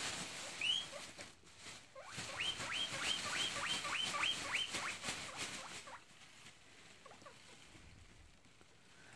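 Guinea pig wheeking: a run of about eight short rising squeals, about three a second, starting about two seconds in, with a single squeal before them. This is its begging call for food when hungry.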